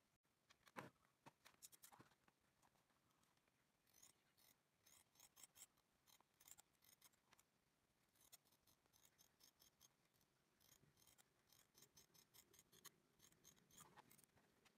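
Faint scissors snipping through a sheet of rubber tyre inner tube, in quick runs of short cuts, after a couple of light knocks near the start.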